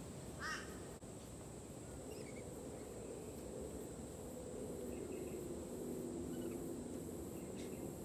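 Rainbow lorikeet calling while feeding: one short, harsh screech about half a second in, followed by a few fainter short chirps.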